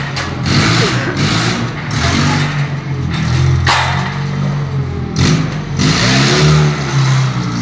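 FG14 forklift's engine running and revving as it is driven forward, with several sharp knocks and cracks as the steel forks break through a block wall.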